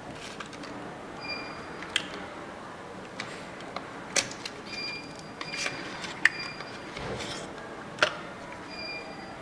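Buttons pressed on a home alarm control panel's keypad: scattered sharp clicks and several short, high-pitched key beeps.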